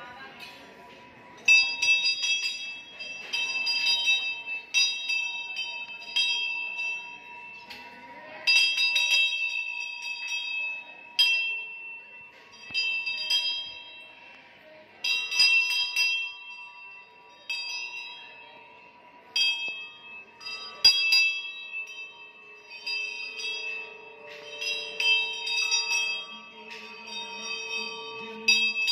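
Temple bell struck again and again, roughly once a second with a few short pauses, each strike a bright metallic ring that dies away within a second. A faint steady hum runs underneath.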